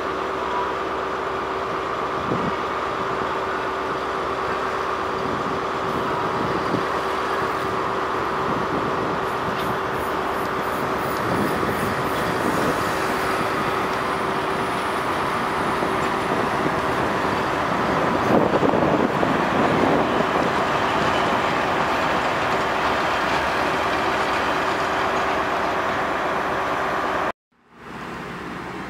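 Diesel multiple unit running slowly through a station, a steady engine drone with a constant hum held under it, swelling about two-thirds of the way in. It cuts off suddenly near the end, giving way to a quieter train sound.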